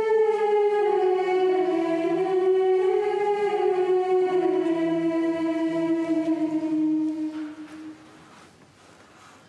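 A choir singing a slow liturgical chant in long held notes that step gradually down in pitch, then die away about seven and a half seconds in.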